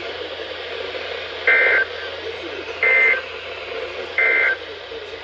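Three short bursts of SAME digital data tones, the end-of-message code that closes an Emergency Alert System broadcast on NOAA Weather Radio, each about a third of a second long and a little over a second apart, over the receiver's steady static hiss.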